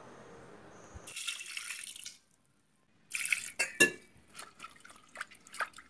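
Water running into a steel pressure cooker pot to wash split lentils (dal), in two short pours, the second splashier with clicks, followed by light drips and small knocks.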